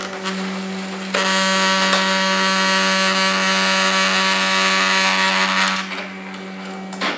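Canon i-SENSYS FAX-L390 laser fax copying a page: a steady hum, then about a second in its document-feed motor starts a loud, even whirring whine for about four and a half seconds as the sheet is pulled through the feeder, before dropping back to the hum. A click near the end.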